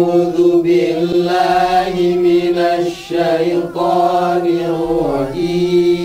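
Melodic chanting in the nahawand recitation melody (irama nahawand): long, drawn-out notes with turning ornaments over a steady held low tone, dipping briefly about three seconds in and again near the end.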